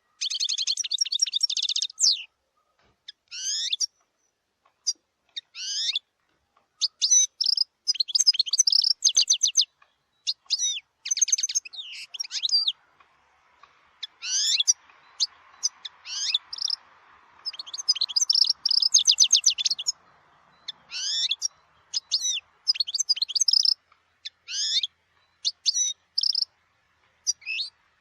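European goldfinch singing: phrases of fast trilled notes mixed with quick rising whistles, broken by short pauses.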